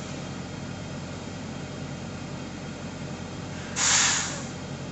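Semi truck's air brakes letting out a short, loud hiss of air about four seconds in, over the steady hum of an idling diesel truck engine.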